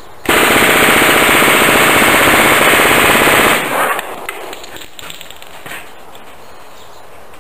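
A .45 ACP Thompson submachine gun (Tommy gun) with a drum magazine firing one long full-auto burst of about three seconds, which cuts off and leaves a short echo.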